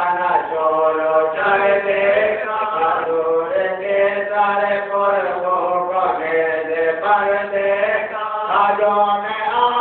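A voice chanting a melodic recitation in long held phrases, each note sustained and sliding into the next, with short breaks between phrases.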